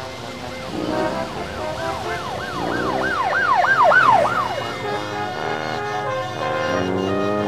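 Brass-heavy background music, over which a siren yelps in quick up-and-down sweeps, about three a second, swelling to its loudest about four seconds in and then fading.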